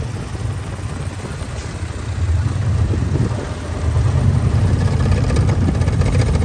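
Low, rough engine rumble of a slow-moving off-road vehicle, getting louder about four seconds in.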